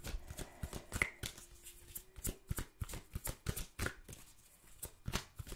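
A tarot deck being shuffled and cards pulled from it by hand: a run of quick, irregular card flicks and taps.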